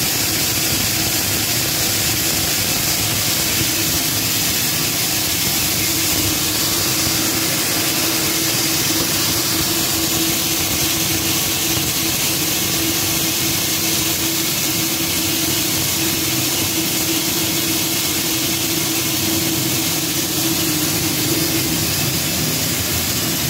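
Atta chakki grain mill (pulverizer type) running steadily while cracking maize, a loud, even machine noise with a steady hum.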